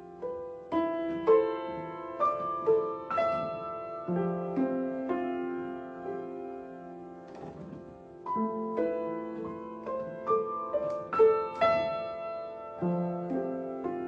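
Solo piano playing an improvised-sounding original piece, struck notes and chords ringing on and overlapping, with a few louder accents around two, three and eleven seconds in.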